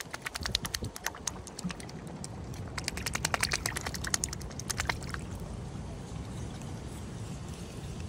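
Mute swan dabbling with its bill in shallow water: a rapid run of wet clicks for about the first five seconds, then they stop. Low wind rumble on the microphone runs underneath.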